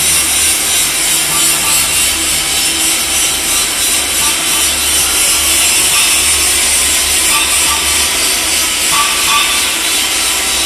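Electric welding arc on a stainless steel pipe, crackling and hissing steadily as the bead is run, over a low steady hum.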